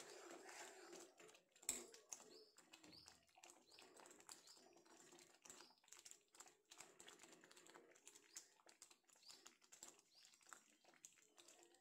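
Faint, irregular small pops and clicks of thick green egg curry simmering in a pan, with one sharper click about two seconds in.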